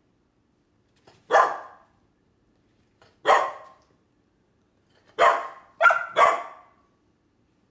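Golden retriever puppies barking: five short, sharp, high barks, the first three about two seconds apart and the last three in quick succession near the end.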